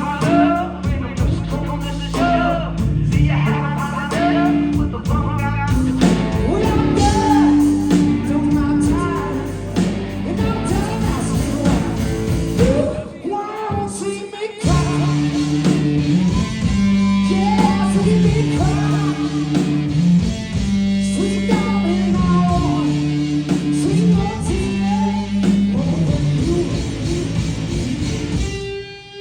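Live rock band playing, with electric guitar and singing over a steady beat. The band drops out briefly about halfway, then comes back in.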